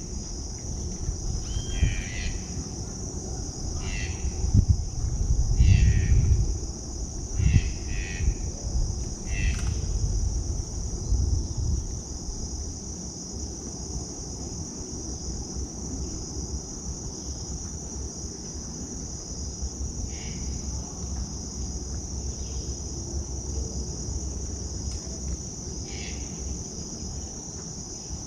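Insects droning steadily in a high, unbroken band, with short animal calls repeating every second or two over the first ten seconds and twice more later. A low rumble sits underneath during roughly the first twelve seconds.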